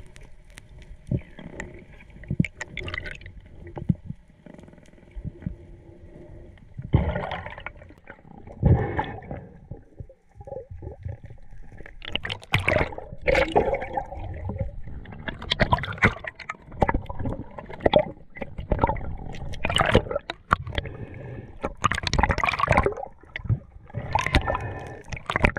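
Sea water splashing and gurgling in irregular bursts, busier from about seven seconds in.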